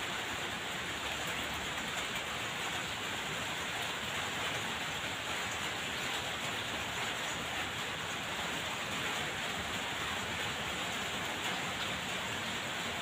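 Steady, even hiss of background noise, with no distinct knocks or other events.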